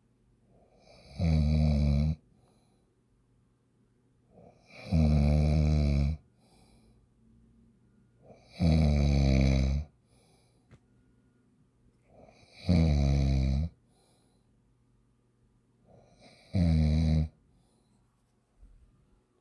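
Snoring: five long, loud snores about every four seconds, with near quiet between them.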